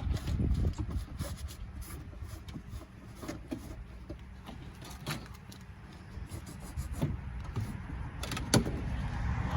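Irregular scraping and rubbing as old built-up wax is cleaned out of a car's tail light opening, with scattered clicks and one sharper click about eight and a half seconds in.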